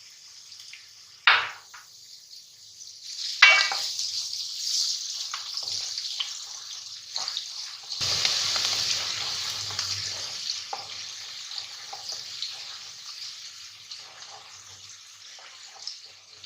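Garlic and onion frying in hot oil in a pan, sizzling while being stirred. Two sharp clinks come about one and three and a half seconds in. The sizzle jumps louder about halfway through, then slowly dies down.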